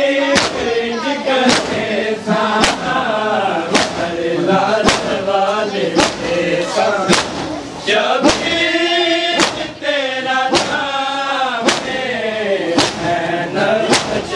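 A group of men chanting a noha (mourning lament) together, with loud, sharp strikes about once a second in steady time with the chant: the unison hand-on-chest beating of matam.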